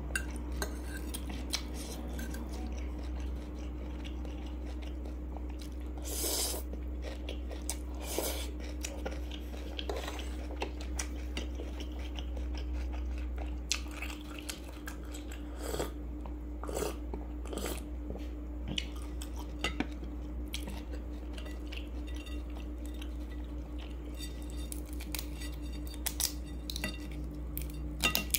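Close-miked eating sounds: a metal fork clinking and scraping against a ceramic bowl of noodles, with chewing, heard as scattered sharp clicks over a steady low hum.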